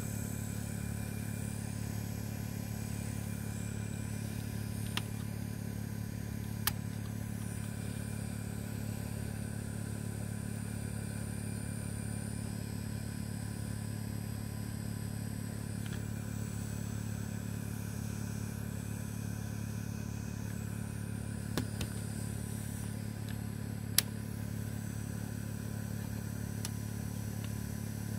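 Steady low hum, with a few short sharp clicks scattered through it, the loudest near the end.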